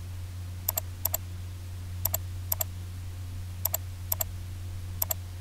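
Computer mouse button clicking: seven pairs of quick press-and-release clicks at irregular intervals. A steady low hum runs underneath.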